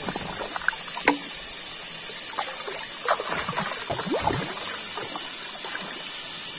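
Shallow river water splashing and gurgling as a green bamboo tube is plunged and swished in it by hand, with bubbling gurgles about three to four seconds in, over the steady rush of the flowing river.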